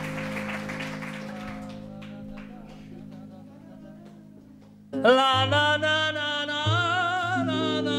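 Audience applause dying away over a chord held by the band, then about five seconds in a man starts singing long, wavering sustained notes with the band, bass notes moving underneath.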